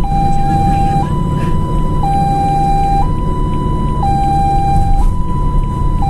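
Ambulance's two-tone hi-lo siren, switching between a lower and a higher tone once a second, over a steady low rumble.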